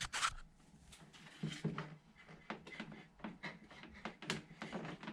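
Scattered light clicks and knocks of plastic and metal parts being handled while a car's headlight housing is worked on.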